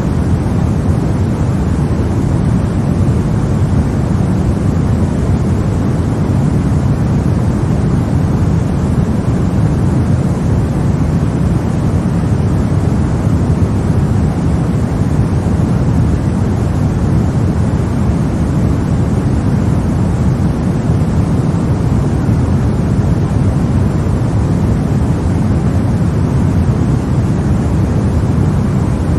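Steady white noise for baby sleep, a constant rushing hiss weighted toward the low end, with no changes or breaks.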